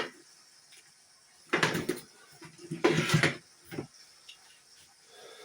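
Rummaging while searching for a stored item: two scraping, rattling bursts of things being moved about, with a few sharp knocks between them.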